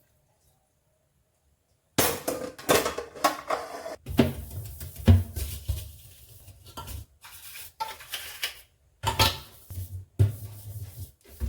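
Dishes and cutlery clinking and clattering as they are handled, with sharp knocks in short stretches broken by brief silences.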